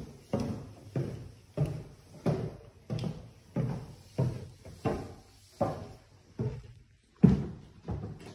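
Footsteps going down a wooden staircase: a steady run of dull thuds, about one every half second or so, with a heavier thud about seven seconds in as the walker reaches the floorboards at the bottom.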